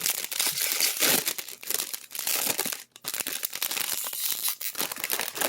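Packaging being torn and crinkled open by hand, a dense run of crackling rustles and small tears with a brief pause about halfway through.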